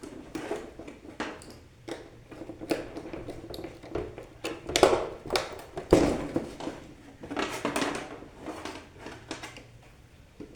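Electrical wire and tools being handled while wiring a lighting circuit's neutral: irregular rustling, scraping and clicks, with louder knocks about five and six seconds in.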